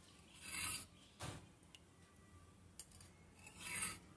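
Hot cooking oil in an aluminium kadai hissing faintly in three short spurts, one about half a second in, one a little after a second and one near the end, with a couple of tiny ticks between them.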